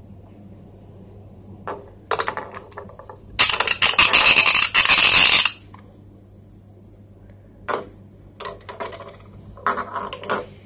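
Rapid plastic clicking in several bursts, loudest for about two seconds in the middle, with shorter bursts near the end: a toy fishing rod's plastic reel being cranked to let the line out or wind it in.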